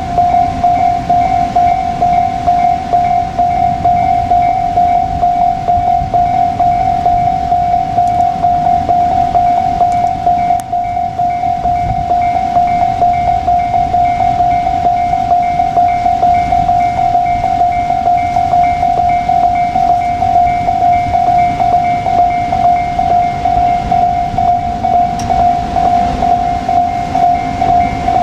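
Japanese level-crossing alarm ringing, a steady rapidly repeated electronic ding, over the low rumble and wheel clatter of a JR Kyushu 787 series electric train running through.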